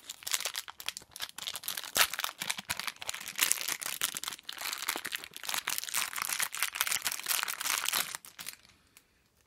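Thin plastic toy sachet crinkling and tearing as it is handled and opened by hand. The crinkling stops about a second before the end.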